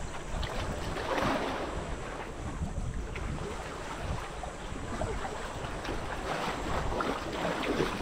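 Wind blowing on the microphone, with a low rumble, over sea water splashing and lapping irregularly.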